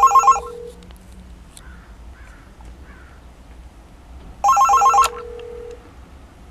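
Analog telephone ringing with a rapid electronic warble on an incoming test call through a Cisco ATA-192 adapter. One ring ends just after the start, and a second starts about four and a half seconds in and is cut off after about half a second as the phone is answered.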